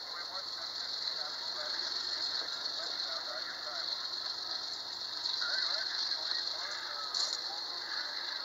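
Amtrak passenger coaches rolling past on steel rails: a steady rattle and clicking of the wheels over the track, with scattered squeaks.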